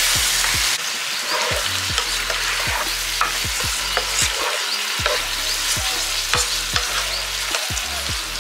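Chicken curry mixture (chicken, onions, tomatoes and spices) sizzling in hot oil in a pan while it is stirred, with scattered clicks and scrapes of the utensil against the pan. The sizzle drops slightly in level about a second in.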